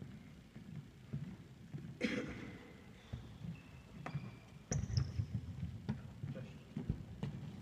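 A football being kicked and bouncing on a sports-hall floor: several sharp thuds that ring through the hall, and a short high squeak about five seconds in.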